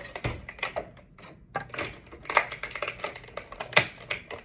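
Clear plastic packaging bag crinkling and crackling in quick, irregular bursts as toy figures are pulled out of it.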